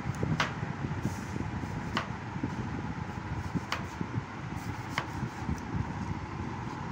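Kitchen knife slicing an apple on a wooden cutting board, the blade tapping the board four times, about one every one and a half seconds, over a steady low background noise.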